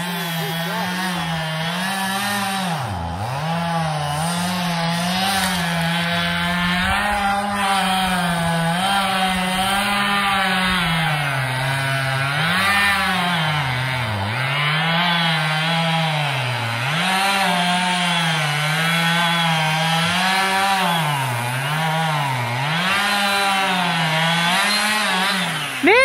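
Gas chainsaw cutting a standing tree. The engine runs continuously, its pitch dropping and recovering again and again as the chain works through the wood.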